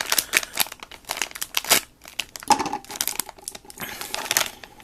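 Crinkly plastic wrapper of a blind-bag eraser pack being worked open by hand, a run of irregular crackling and rustling with a few sharper tearing snaps.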